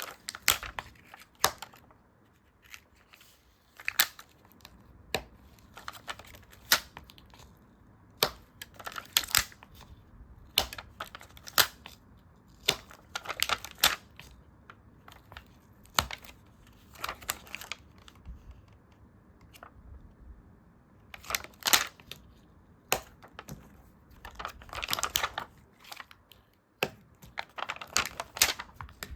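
Stickers and paper being handled close up: stickers peeled from their sheets and pressed down, in short, irregular crinkles, peels and taps with brief pauses between.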